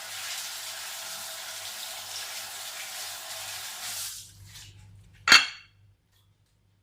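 Kitchen tap running water over fresh maize cobs being rinsed, shut off about four seconds in. A single sharp knock follows about a second later.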